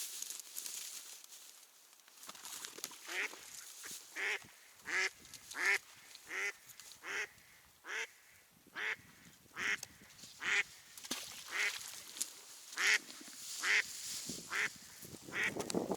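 Mallard hen (a tame decoy duck) quacking in a long, even series of loud quacks, less than a second apart, beginning a couple of seconds in.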